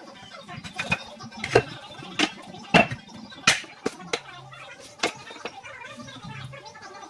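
Hardwood floorboards clacking and knocking against each other and the subfloor as they are set down and laid out, about eight sharp knocks at irregular intervals in the first five seconds.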